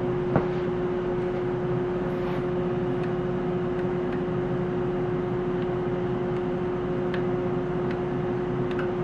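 Steady hum of bench test-equipment cooling fans, with a strong steady tone. A single sharp click comes about half a second in, and a few faint ticks follow later as the oscilloscope's front-panel knobs are turned.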